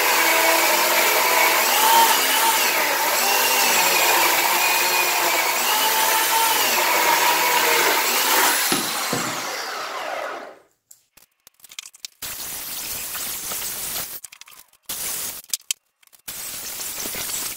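Oregon CS1500 corded electric chainsaw cutting through a thick log, its motor whine dipping and rising as the chain takes the load. About ten seconds in, the saw cuts off and quickly falls away. Short scrapes and knocks follow as the cut wood pieces are handled.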